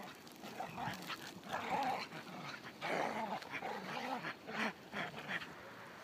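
Norwegian Elkhound vocalizing in a string of short, irregular sounds while it plays, leaping and twisting around a person.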